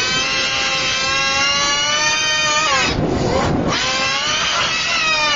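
Screaming from an autism meltdown, heavily distorted by the 'G Major' meme effect's stacked pitch-shifted copies and played in reverse. A long held wail ends about two and a half seconds in, and after a short break a second wail bends downward in pitch.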